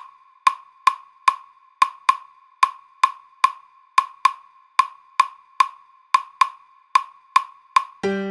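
Claves played alone, sharp ringing wooden clicks about two and a half a second in an uneven, repeating clave rhythm, leading into a salsa track. The full band comes in right at the end.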